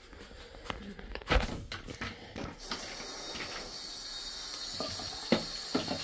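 Hard plastic clicks and knocks as the brush and dirty-water filter of a robot-vacuum dock are handled, the loudest a little over a second in. From about three seconds in, a sink tap runs in a steady hiss over the filter, with a few more knocks of the plastic part against the basin.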